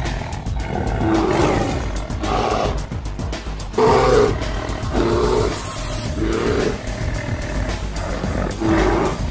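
Background music with repeated animal roars and growls from a tiger and a bear fighting. The roars come about once a second, each short.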